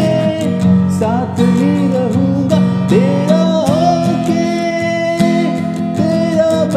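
Instrumental passage of a Hindi pop song: acoustic guitar accompaniment under a melody line that slides between notes.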